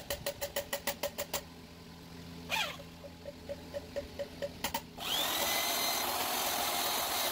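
Rapid, even ticking for about a second and a half, then a single knock. About five seconds in, a handheld electric grinder switches on, spins up with a rising whine, and runs steadily with a high whirr.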